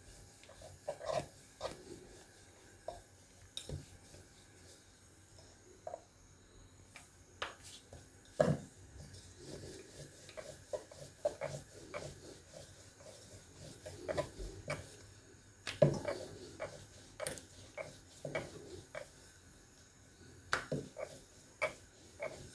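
Wooden rolling pin rolling out a thin round of maida dough on a round wooden board: soft rolling and rubbing broken by irregular light knocks of wood on wood, with a few louder knocks.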